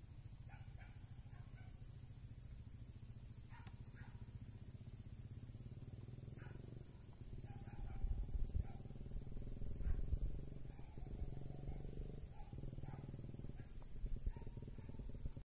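Open-air field ambience: wind rumbling on the microphone, gustier from about halfway through, with scattered bird chirps and a short, high pulsing call repeating every few seconds. The sound cuts off suddenly near the end.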